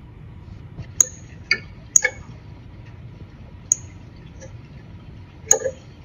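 A northern cardinal pecking at seed on a plastic bird-feeder tray, recorded by the feeder's camera microphone: about six sharp, irregular clicks over a steady low hiss.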